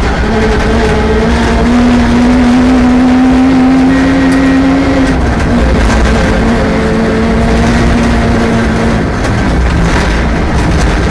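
Rally car engine running hard on a stage, revs climbing steadily for about five seconds, dropping at a gear change, then holding before easing off near the end.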